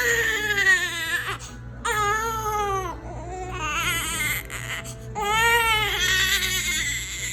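Ten-day-old newborn boy crying: four long wails, each bending in pitch, with short pauses for breath between them.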